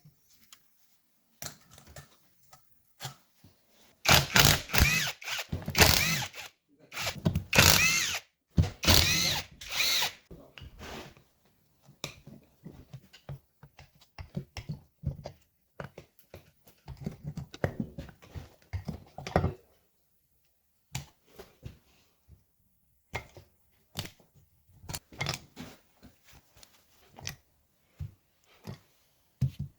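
Hand-held power tool running in several short bursts with its pitch rising and falling, followed by scattered clinks and knocks of tools and metal parts.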